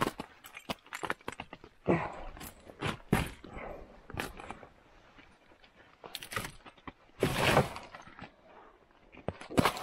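Irregular crunches, knocks and scrapes of someone moving about and handling things at the back of a vintage snowmobile on icy, snowy ground, with a few longer scraping rushes, the loudest about seven and a half seconds in.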